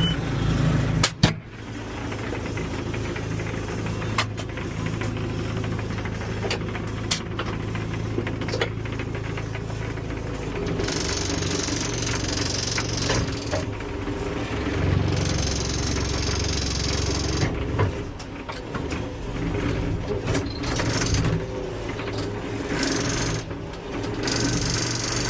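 Backhoe's diesel engine running and rattling under work, with a sharp clank about a second in and several stretches of high hiss a few seconds long.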